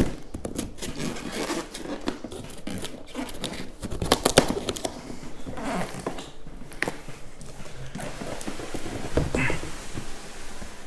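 Large cardboard monitor box and its foam packing scraping, rustling and knocking as the box is worked up off the packed monitor, with the loudest scrape about four seconds in.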